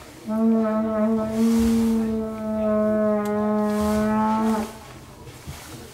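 A horn blown in one long, steady, loud note for about four seconds, stopping about three-quarters of the way through.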